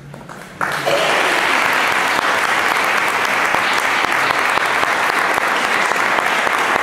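Congregation applauding, starting suddenly just under a second in and keeping up steadily.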